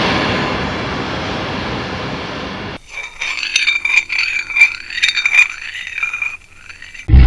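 Horror jump-scare sound effect: a loud noise blast that fades over about three seconds, then scraping and clinking like something scratching against glass or metal.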